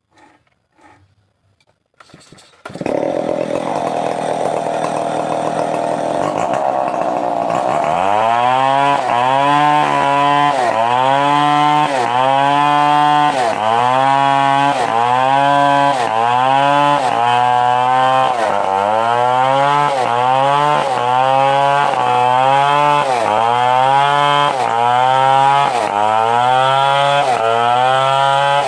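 Stihl 070 two-stroke chainsaw running loud, coming in abruptly about two and a half seconds in. After a few seconds at steady high revs, its pitch dips and climbs back about once a second, the engine loading and recovering.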